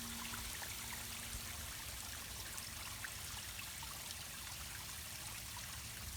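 Steady trickling and flowing of water into a garden pond. A held music note dies away in the first couple of seconds.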